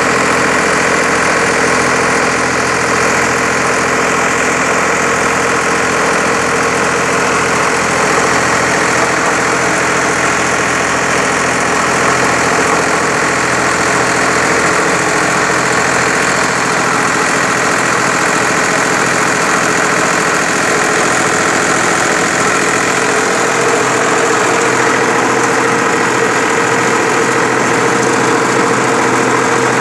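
Air-cooled three-cylinder diesel engine of an engine-driven centrifugal pump set running steadily.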